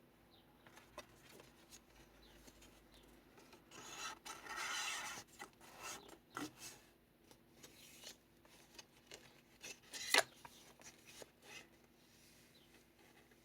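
Paper pages of a handmade kraft-envelope junk journal being handled and turned: soft rustles and small ticks, a longer paper swish about four seconds in, and a sharp crisp snap of paper about ten seconds in, the loudest sound.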